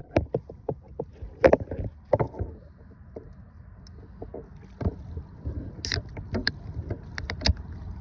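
A series of irregular knocks, clunks and clicks over a low, steady rumble, with louder hits about one and a half seconds in and again near the end.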